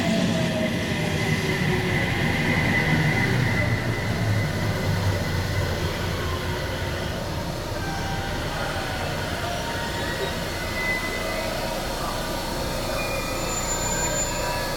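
JR Central 313 series electric train braking to a stop at a station platform: its motor whine falls in pitch as the low rolling rumble eases off over the first few seconds, then the standing train hums steadily.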